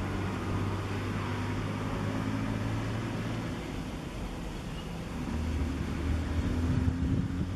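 Low steady engine hum that shifts in pitch a little past halfway and gets louder near the end, over a steady hiss.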